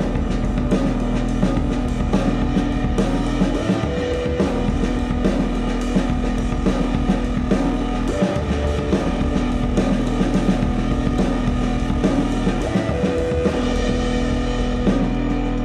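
Klipsch RP-600M II bookshelf speakers playing instrumental piano, double bass and drums jazz-trio music, with fast, busy drumming over sustained low notes, picked up by room microphones.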